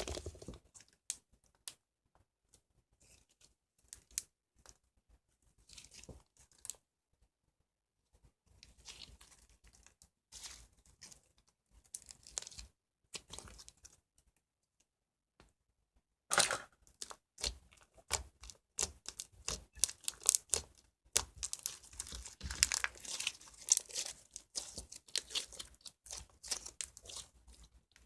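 Slime being squished and stretched by hand, making irregular crackling and popping sounds, sparse at first and much busier and louder through the second half.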